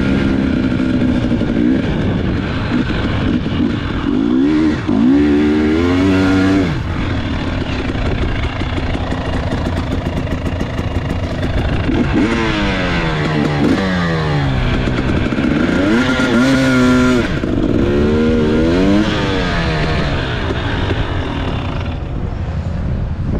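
KTM 300 XC TPI two-stroke single-cylinder dirt bike engine under way in sand, repeatedly revving up and falling back in pitch as the throttle is worked.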